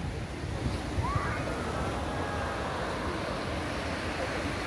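Sea surf and wind: a steady rushing noise.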